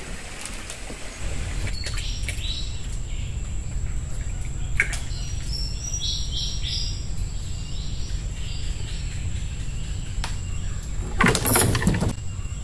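Short runs of high chirping calls from small animals, over a steady low rumble and a thin, steady high whine. A loud noisy burst comes near the end.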